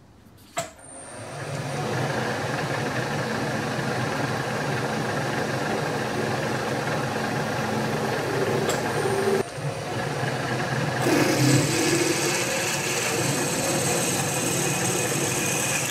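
Milling machine spindle running with a twist drill cutting into an 8 mm steel plate held in a machine vise. The machine comes up to speed over the first second or two and then runs steadily, with a short break near the middle, and the cutting gets noisier and hissier in the last few seconds.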